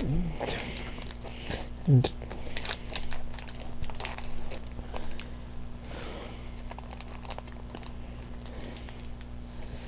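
Foil wrapper of a Pokémon booster pack crinkling and crackling in quick, irregular bursts as it is handled and opened. A short vocal sound comes about two seconds in.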